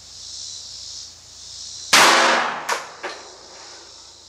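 A single .380 ACP pistol shot from a Bersa Thunder 380 Plus, a sharp crack about two seconds in with a short ringing tail. Two fainter knocks follow within the next second.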